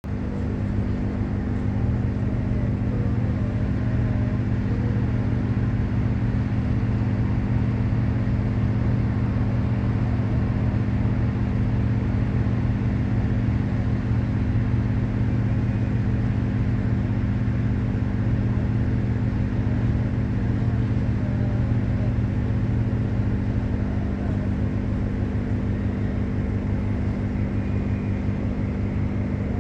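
Water boat's engine running steadily as the vessel comes in: an even, low drone that holds the same pitch and level throughout.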